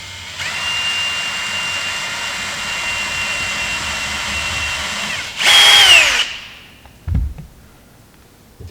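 Cordless drill driving a screw into a wooden deck without pre-drilling: the motor runs at a steady whine for about five seconds, then gives a louder burst whose pitch falls as it spins down. A low thump follows about a second later.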